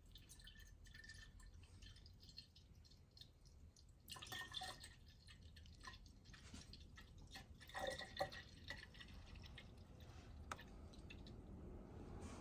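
Faint trickling and dripping of Honda coolant being poured from a jug into a Mishimoto expansion tank, louder for a moment about four and again about eight seconds in.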